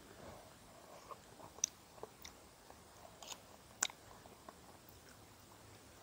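Faint eating sounds: a metal spoon clicking against a glass mug of porridge, with soft mouth noises as it is eaten. There are half a dozen sharp clicks at uneven intervals, the loudest about one and a half seconds in and again near four seconds.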